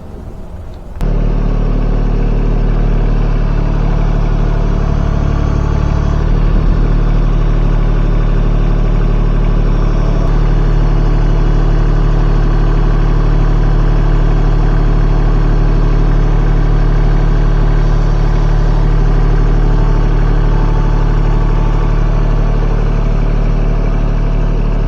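An engine running steadily, starting abruptly about a second in, with a slight change in its note about six seconds in.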